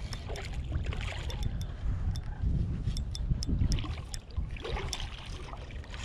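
River water sloshing and splashing around a wading angler fighting a hooked smallmouth bass on a spinning rod, with the fish thrashing at the surface near the end. A low rumble of moving water, with scattered light clicks throughout.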